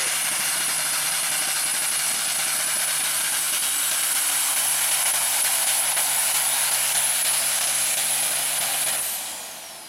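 Diesel pulling semi truck running at full throttle as it drags the weight sled, a loud steady engine noise with a thin high whistle over it. About nine seconds in the engine backs off: the noise drops and the whistle falls away.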